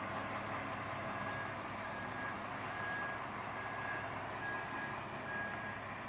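Large mobile crane's diesel engine running steadily, with its warning alarm beeping at regular intervals.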